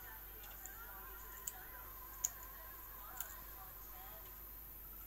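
Three short sharp cracks, the middle one loudest: a blue-tongued lizard crunching the hard shell of a rhinoceros beetle in its jaws.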